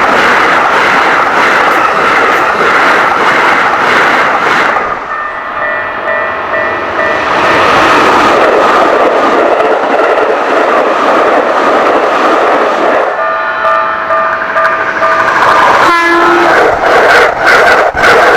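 A train passing close by at speed, with its wheels clacking over the rail joints and a horn sounding. A brisk run of joint clacks comes through near the end.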